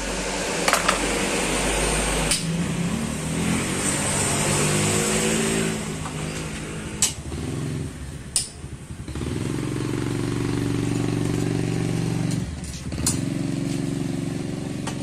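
A motorcycle engine running and revving, its pitch rising and then holding steady, dropping back twice, with a few sharp metallic clicks in between.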